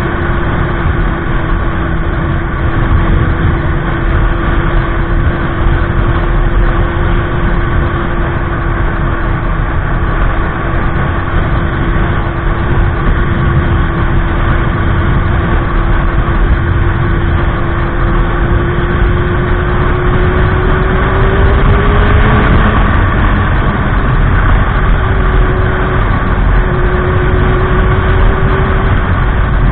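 Motorcycle engine running steadily while riding, under a heavy low rush of wind noise. About two-thirds of the way in the engine note climbs, breaks off, then settles again a little higher.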